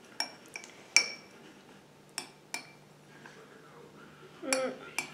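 Metal spoon clinking against the side of a bowl while stirring a glue-and-water slime mixture: a handful of sharp clinks, then a short scraping clatter near the end.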